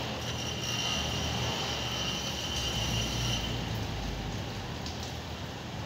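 Hyundai bus running steadily with its raised rear wheel turning, a low even engine hum with a thin steady high whine over the first three seconds or so.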